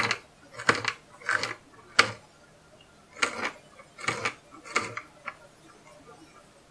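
Kitchen knife dicing a cayenne pepper on a plastic cutting board: about eight knife strikes against the board at an uneven pace.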